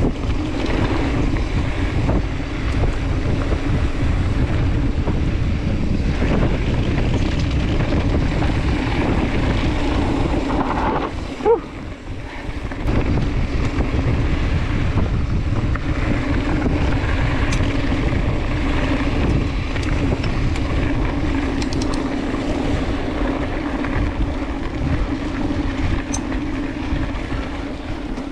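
Wind buffeting the microphone and tyres rolling over dry dirt as a mountain bike descends fast, a steady rushing rumble. About eleven seconds in there is a brief squeal and the noise dips for a moment.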